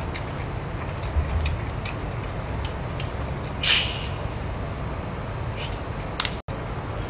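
Cap twisted off a plastic bottle of Coca-Cola, with a short loud hiss of escaping carbonation about halfway through. Small clicks of eating run underneath.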